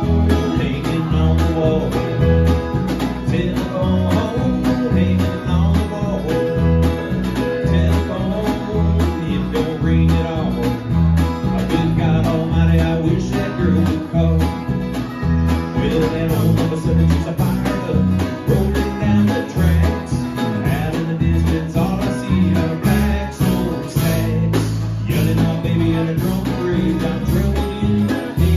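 Live country-style band playing a song: strummed acoustic guitar, electric bass, keyboard and a drum kit keeping a steady beat.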